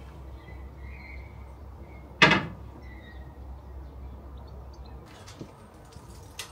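A single loud, sharp knock about two seconds in that rings out briefly, over a steady low hum that stops about five seconds in.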